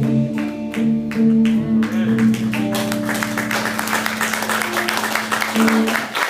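Live band playing the instrumental close of a worship song: guitar over held chords and a steady beat, with no singing.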